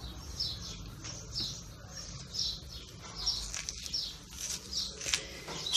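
Metal spoon scraping out the flesh and seeds inside a hollowed round courgette as it is turned in the hand, with short high squeaks about once a second.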